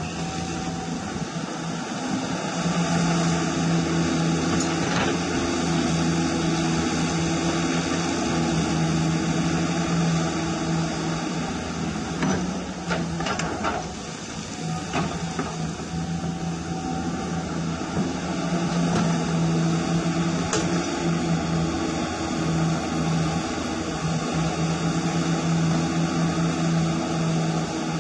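Hydraulic pump of a scale RC Caterpillar 336 hydraulic excavator whining steadily, its tone shifting as the boom, arm and bucket move. A few short knocks and scrapes come from the bucket digging soil about halfway through.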